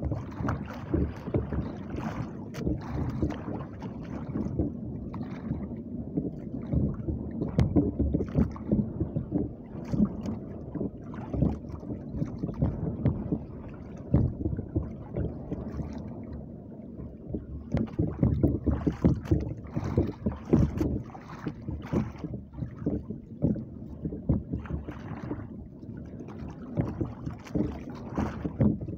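Water slapping and lapping against the hull of a small outrigger boat drifting on choppy sea, in irregular knocks and splashes over a steady rumble of wind on the microphone.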